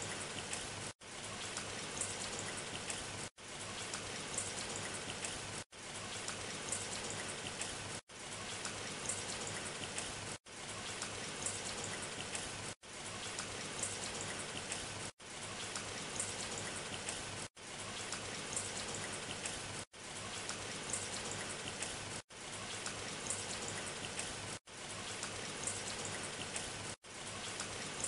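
Steady patter of rain, cut by a brief dropout to silence about every two and a half seconds.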